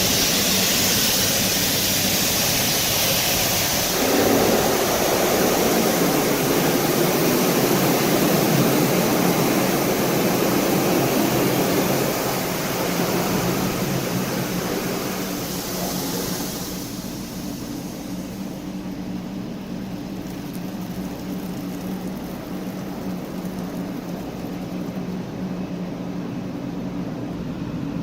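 Heavy rain with strong wind. About four seconds in, a long low rumble of thunder rolls in and dies away over roughly ten seconds. Later the bright hiss of the rain drops away, leaving a duller steady rush.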